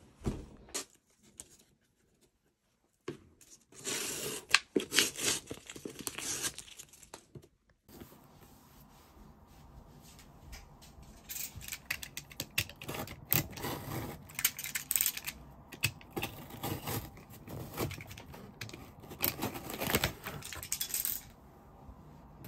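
Utility knife slicing through packing tape on a cardboard box, in a run of irregular scraping, tearing strokes.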